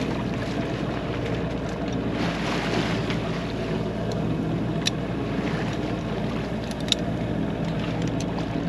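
Sailboat under way at sea: water rushing along the hull and wind on the microphone over a steady low hum. A couple of sharp clicks come about five and seven seconds in.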